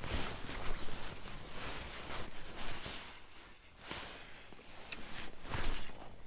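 Handling noise from a baitcasting rod and reel worked by hand: rustling with a few sharp clicks, one near the start and one about five seconds in.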